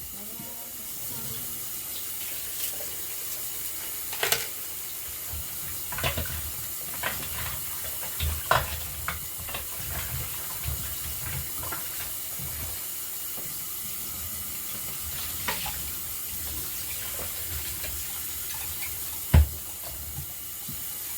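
Kitchen tap running into the sink while pieces of cow foot are washed under it. Scattered knocks and clunks of the pieces being handled sound over the water, the loudest one sharp, about two seconds before the end.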